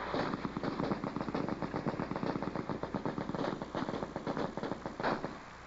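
Machine guns firing in rapid, sustained automatic bursts, a fast stream of shots that thins briefly near the end.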